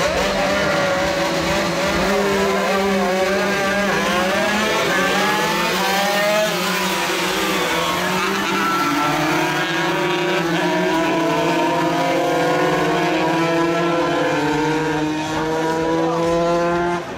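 Several 125cc racing motorcycles accelerating away from a standing start and racing. Their engines rise in pitch through each gear and drop back at every shift, with several engines overlapping.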